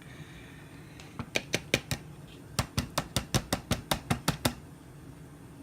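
A quick run of sharp clicks or taps: a few about a second in, then a rapid string of about a dozen, five or six a second, stopping about a second before the end.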